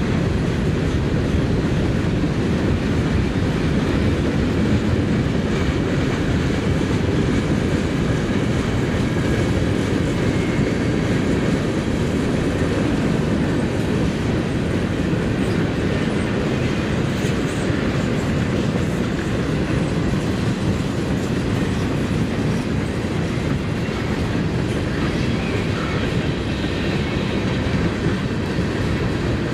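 Freight train cars rolling past on steel rails: a steady rumble of wheels on track that goes on without a break.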